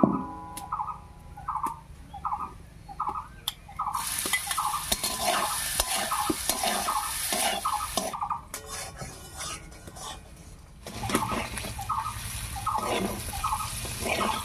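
Cubes of paneer frying in hot oil in a kadai, sizzling from about four seconds in, with a metal spatula stirring and scraping against the pan. A bird's short call repeats about every two-thirds of a second throughout.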